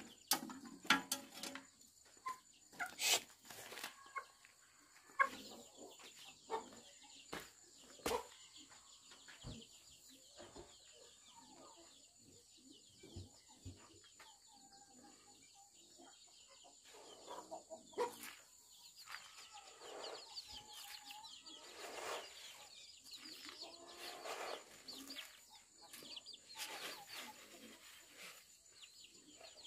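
Domestic chickens clucking, with scattered light knocks and taps in the first ten seconds or so.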